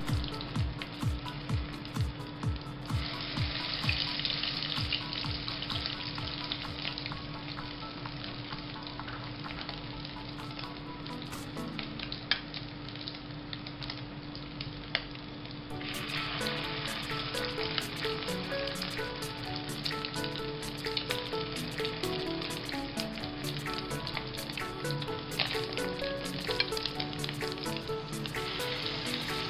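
Corned beef and egg omelet patties sizzling in hot cooking oil in a nonstick pan, a steady hiss with many sharp little crackles and pops. The sizzle gets louder about halfway through.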